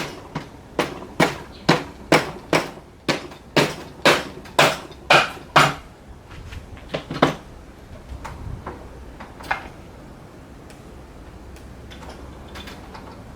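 A run of about a dozen sharp knocks, roughly two a second, that stops about six seconds in, followed by two or three fainter knocks. They fit hammer blows on engine parts during the Honda Monkey engine teardown.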